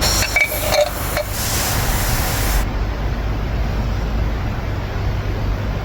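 A spray-like hiss lasting about two and a half seconds, with a few small clicks at its start, then cutting off, over a steady low hum.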